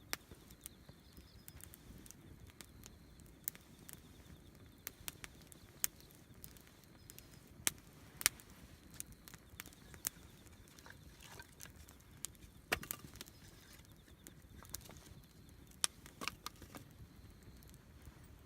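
Wood campfire crackling: sharp, irregular pops and snaps over a low, steady background rumble.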